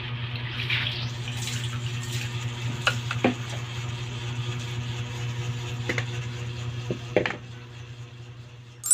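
Steady low hum under a hiss, with a few light clicks and knocks; the hiss drops away about seven seconds in.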